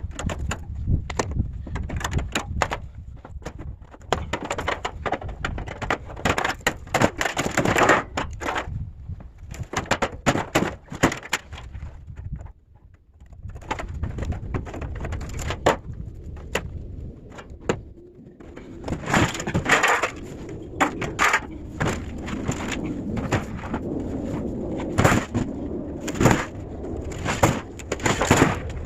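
Scrap being handled and loaded: repeated clanks, bangs and scraping, with a short lull about halfway through.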